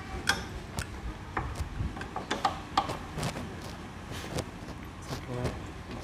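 Motorcycle front brake caliper being handled and fitted back over the brake disc: a series of light metal clicks and clinks, about a dozen irregular ones.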